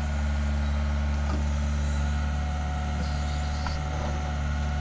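Doosan DX55 mini excavator's Yanmar 4TNV diesel engine running steadily with a low hum as the machine digs and lifts its bucket, with a faint steady higher tone joining about two seconds in.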